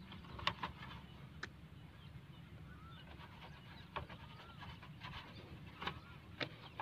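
Soft cloth wiping polish off a motorcycle's front fender, with a few light taps and clicks scattered through. Several short, faint bird chirps are heard in the background.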